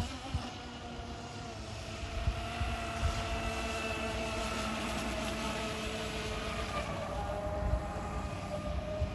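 Radio-controlled catamaran running across a pond, its motor a steady multi-tone whine over a hiss of spray. The sound swells for several seconds in the middle as the boat comes closer, then eases off.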